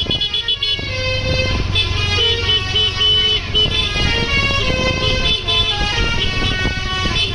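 Basuri telolet bus horn playing a melody of held, changing tones, over a steady low engine hum.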